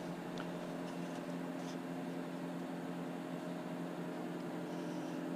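Steady mechanical hum with a faint hiss, with a couple of faint ticks in the first two seconds.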